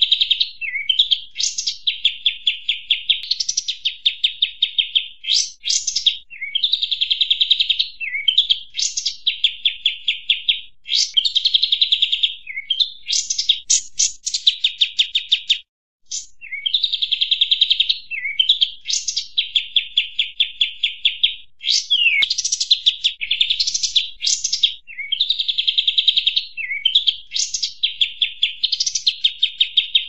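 Bird-lure recording of kapas tembak birds calling noisily: fast, high trills broken by sharp rising chirps, the phrases repeating over and over, with a brief dropout about halfway through.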